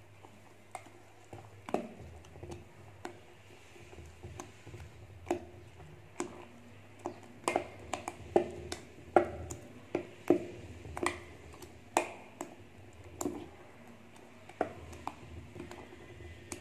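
A metal spoon clinking against a stainless steel bowl while stirring thick dosa batter, with irregular sharp clicks about one to two a second.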